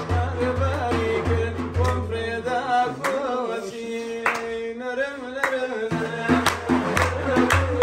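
A man singing a song over a low, steady drum beat, with hands clapping along. The beat drops out about three seconds in and comes back near six seconds.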